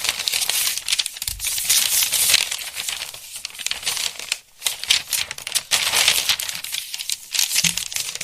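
Paper pages of a book being handled and flipped: a dense run of papery rustling and crinkling swishes, with a brief pause about halfway through.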